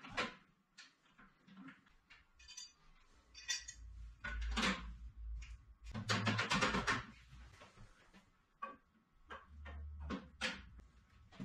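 Sheet-steel brackets clinking, rattling and scraping against the bandsaw's steel stand as they are handled and fitted, with sharp knocks throughout and a longer rattle about six seconds in.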